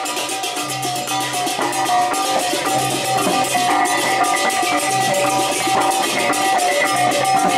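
Music with fast, even percussion beats under steady, ringing metallic tones.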